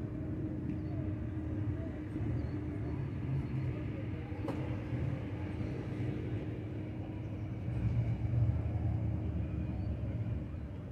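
A vehicle engine running with a steady low rumble and hum, briefly louder about three-quarters of the way through, with a single sharp click about halfway.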